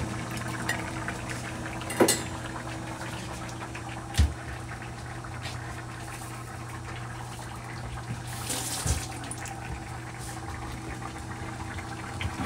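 Water in a pan on an induction hob heating toward the boil: a steady bubbling hiss over a steady low hum. Sharp kitchen knocks come about two and four seconds in, and a brief hiss about two-thirds through.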